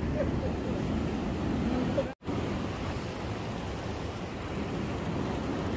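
Sea waves washing with wind rushing over the microphone, a steady noisy rush. The sound cuts out for a moment about two seconds in.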